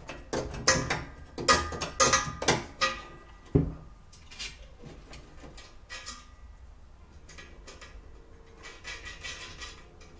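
Steel C-channel and bar pieces being handled on a steel welding table: a quick series of sharp metal clanks and clinks in the first few seconds, then lighter scattered knocks.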